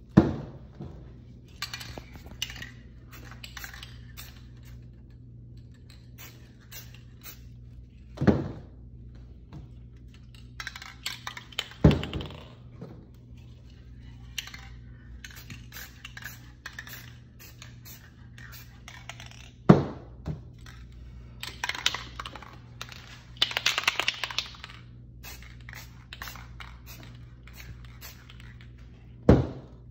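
Aerosol spray paint cans being handled: several sharp knocks as cans are set down on the table, runs of quick metallic rattling from cans being shaken, and short hisses of paint spraying, the longest a little past the middle.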